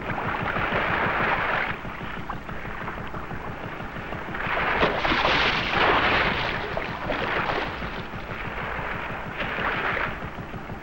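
Boat noise at sea: rushing water and wind that swell and fade every few seconds over a steady low rumble.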